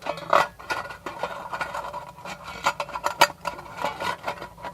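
Thin tin-can sheet metal being handled: irregular clinks, rattles and scrapes as a cut piece is slipped onto a tin can.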